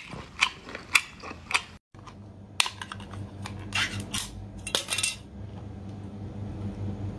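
Metal pull-off lid being peeled from a can of spicy seafood: several short, sharp rasps of metal. A steady low hum runs underneath, and there are a few soft clicks of eating before them.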